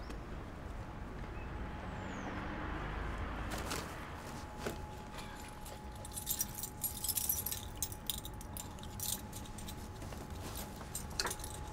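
A bunch of keys jangling as they are fished out and handled, a quick run of small metallic clinks loudest in the middle, with a single click near the end.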